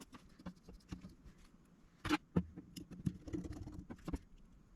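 Faint scattered clicks and ticks of a precision screwdriver driving the two tiny pentalobe screws into the bottom of an iPhone 5, with a couple of sharper clicks about two seconds in.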